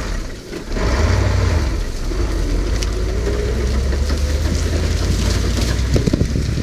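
A farm vehicle's engine running steadily with a deep, low rumble. It dips briefly about half a second in, then holds steady.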